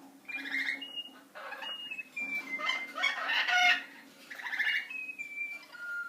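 Small pet parrots chirping and squawking in short, irregular bursts, with thin high whistled notes among them.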